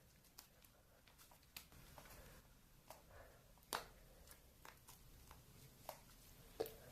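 Faint handling of super-sticky slime: scattered soft clicks and squelches as it is pulled and pressed by hand, with a sharper snap about halfway through.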